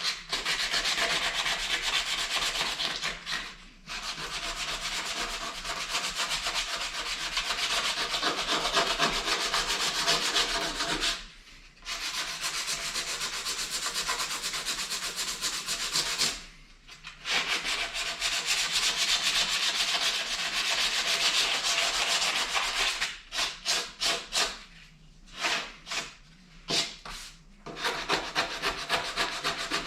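Sandpaper worked by hand over cured Bondo body filler on a truck's body panel, a steady scratchy hiss in long runs with brief pauses. Near the end it breaks into short separate strokes.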